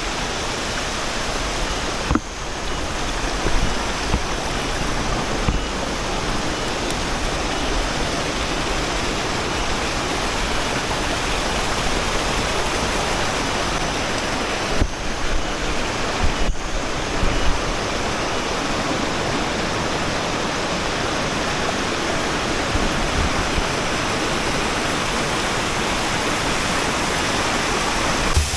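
Waterfall rushing: a steady roar of falling water, with a couple of brief dropouts.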